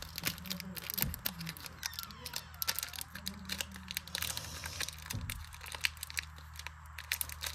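Foil Pokémon booster pack wrapper crinkling and tearing as it is opened and the cards pulled out, a run of small irregular crackles.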